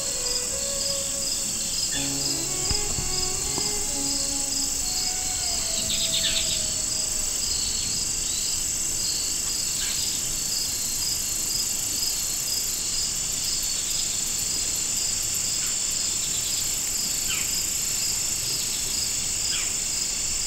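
Evening insect chorus of crickets and other insects: a steady high buzz with a regular pulsing chirp under it. A few short descending bird calls break through, and soft background music fades out in the first several seconds.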